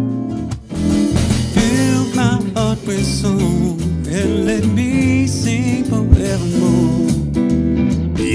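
Acoustic guitar notes that break off within the first second, followed by a band song: a man singing over electric bass guitar.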